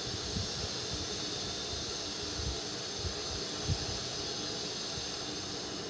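Steady hiss of thick gravy frying in an aluminium kadai as it is stirred with a steel spoon, cooking down until the oil separates, with a few soft low thumps.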